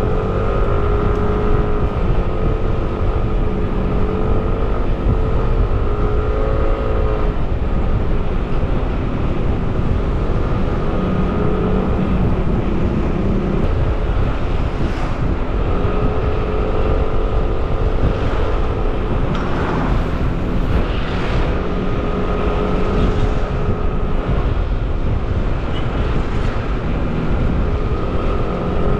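A Yamaha NMAX scooter's single-cylinder engine running steadily while riding at about 35 to 50 km/h, its note wavering slightly, under heavy wind rumble on the microphone.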